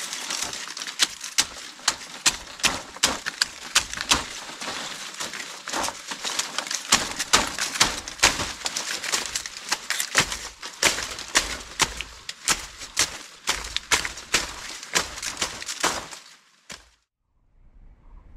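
Rapid, irregular crunching and snapping strikes, two or three a second, with rustling between them, stopping suddenly near the end.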